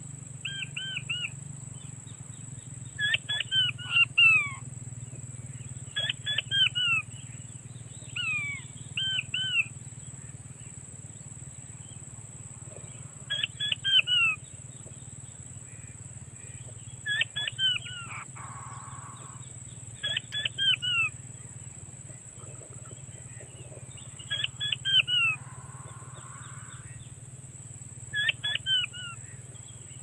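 Blue-breasted quail call played as a lure through a small portable speaker: groups of three or four short, falling piping whistles, repeated every three to four seconds.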